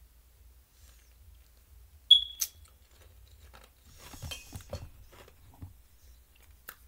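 A sharp click with a brief high squeak-like tone about two seconds in, then a couple of seconds of rustling and light knocks as small objects are handled and moved.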